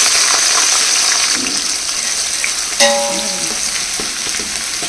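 Sliced onions sizzling in hot oil in a large aluminium pot as they are tipped in and stirred with a perforated metal ladle. About three seconds in, the ladle knocks once against the pot with a short metallic ring.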